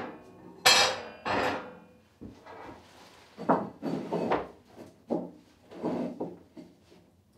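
Cast-iron lid of a wood stove's cooking hole clanking down onto the iron stove top, twice in quick succession about a second in, with a ringing metallic edge. A run of softer, duller knocks follows.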